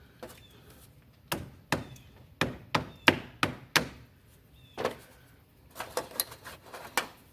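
Rubber mallet tapping a battery terminal clamp down onto its post: a run of sharp knocks, about seven evenly spaced at first, then one more and a quicker cluster of lighter taps near the end.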